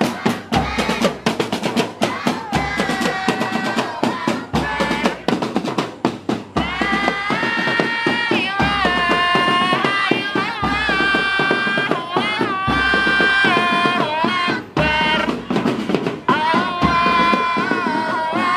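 Loud band drumming with snare rolls and a low bass beat about every two seconds. From about six seconds in, a sustained melody with bending notes joins over the drums.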